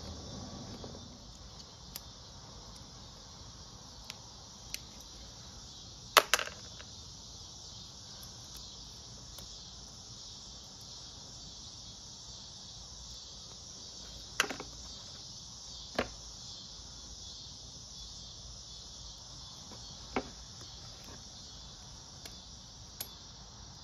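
Sparse light clicks and taps of a screwdriver against small carburetor parts (the cap, spring and throttle slide) as they are worked off the ATV's throttle cable. The sharpest click comes about six seconds in and a few more follow later, over a steady high hiss.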